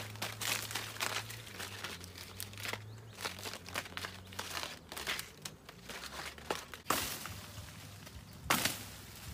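Irregular crackling and rustling, like material being crumpled or handled, with two louder sharp cracks in the second half and a faint low hum underneath.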